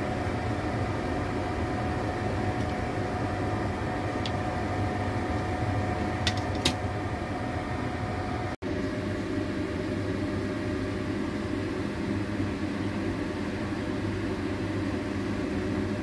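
Steady whirring hum of a kitchen appliance fan, with a few light metallic clicks of tongs a little past a quarter of the way in. The hum cuts out for an instant a little after halfway and carries on slightly deeper.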